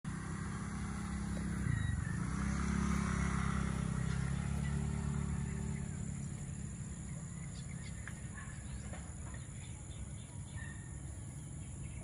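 Outdoor field ambience: a motor vehicle's engine rumbling as it passes at a distance, loudest in the first few seconds and then fading, over a steady high insect buzz.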